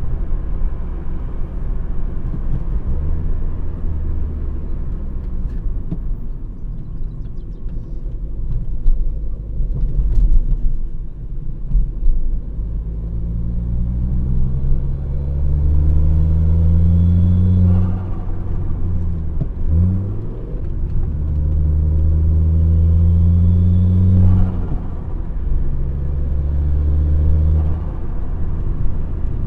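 Straight-piped exhaust of a turbocharged Volvo S60 2.0T, rumbling at low revs. About halfway through, the engine pulls up through the revs twice, with a quick gear change between the pulls, then the throttle closes and it settles back.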